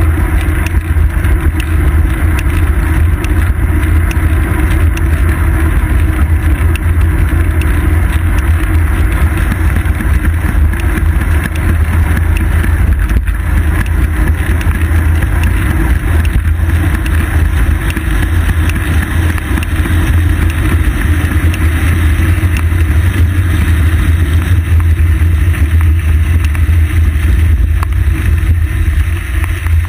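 Steady wind buffeting and road rumble picked up by a bicycle's seat-post-mounted action camera while riding, mostly a heavy low rumble with a hiss of tyre and air noise over it.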